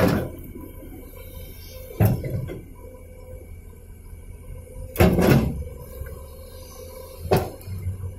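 Hyundai crawler excavator running steadily while its bucket thumps down on loose sandy fill four times, a few seconds apart.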